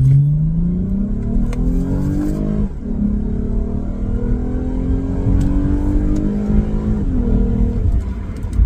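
Lexus GS350's 3.5-litre V6 accelerating hard through an aftermarket axle-back exhaust, heard from inside the cabin. The engine note climbs, drops at an upshift about three seconds in, climbs again, then falls back near the end.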